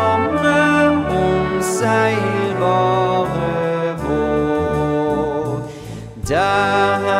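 Background instrumental music of sustained chords that change every second or so, briefly dropping away near the end before coming straight back in.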